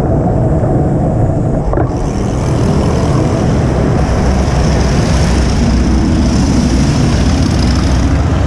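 Wind rushing over the camera microphone of a moving bicycle, a loud, steady rumbling rush.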